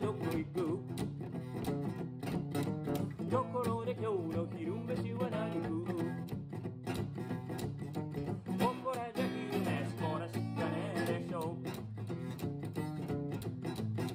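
Acoustic guitar song: a strummed acoustic guitar with a singing voice over it.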